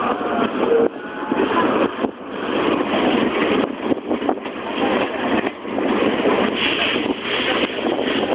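Oigawa Railway steam train running just after pulling out of a station, heard from a carriage window: a steady, uneven rushing noise of the moving train and its locomotive working.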